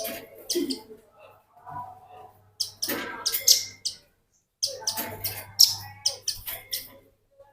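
Velvet-fronted nuthatch (rambatan paruh merah) singing in rapid runs of sharp, high chips, four bursts separated by short pauses.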